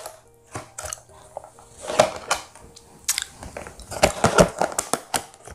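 A clear plastic food container being handled and its lid worked: a run of irregular plastic clicks and knocks, busiest from about three to five seconds in.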